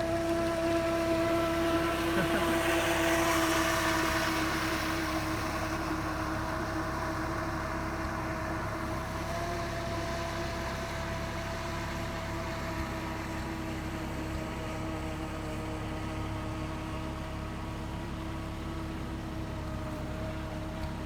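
Radio-controlled hydrofoil boat running on the water: a steady motor whine, with a rush of hiss that swells about two seconds in and fades by about six seconds.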